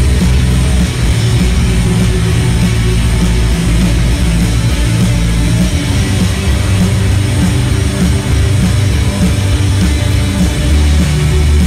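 Live rock band playing loud and without a break: electric guitars, bass guitar, drum kit and keyboard.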